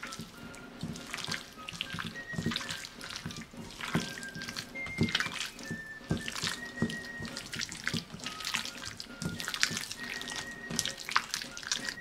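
Wet squelching and squishing of a hand kneading marinated chicken thigh pieces in egg and flour batter in a stainless steel bowl, in quick irregular strokes. A soft whistled tune plays underneath.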